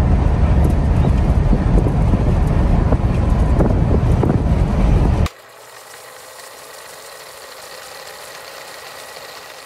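Air-cooled Volkswagen bus on the move, heard from inside the cab: its rear-mounted flat-four engine and road noise make a loud, dense low rumble. About halfway through it cuts off abruptly to a much quieter steady hiss.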